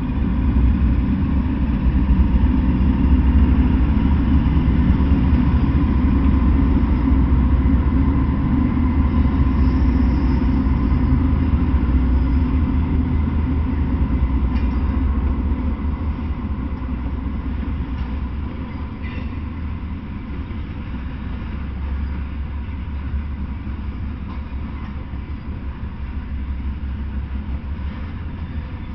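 Norfolk Southern freight train passing close by: diesel locomotives at first, then a string of open-top hopper cars rolling over the rails. The deep rumble is loudest in the first half and eases off after about fifteen seconds.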